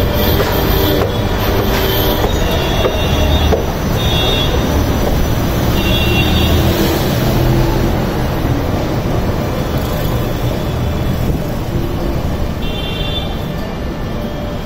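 Metro train running with a steady loud rumble, with several short high squeals of steel wheels on the rails.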